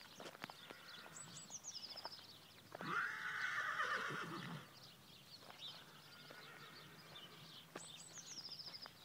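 Horse whinnying once, about three seconds in: a loud call of nearly two seconds, high at first and falling in pitch toward its end.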